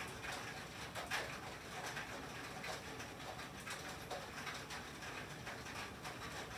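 Rain and sleet falling on a tin roof: a steady hiss with many irregular sharp ticks as drops and ice pellets strike the metal.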